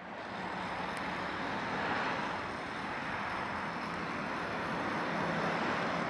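Steady hiss and rumble of road traffic, fading in at the start, with a faint low hum underneath.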